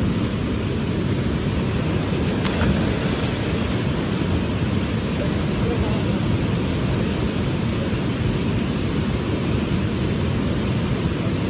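Steady rushing noise of a fast river running over rapids.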